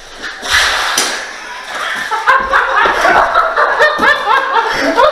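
Hearty laughter in quick repeated bursts, starting about two seconds in and going on to the end. It follows a loud short burst of noise about half a second in.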